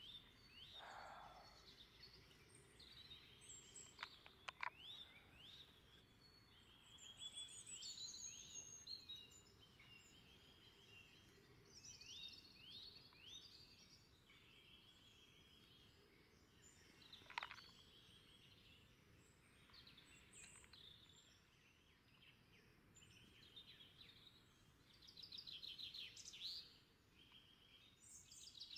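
Faint birdsong: several birds singing and calling in many short, high chirps and trills, a few notes sweeping quickly down in pitch.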